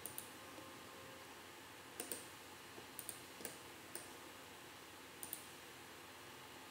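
Computer mouse clicking now and then: about ten faint, sharp clicks, some in quick pairs, over a low steady hiss.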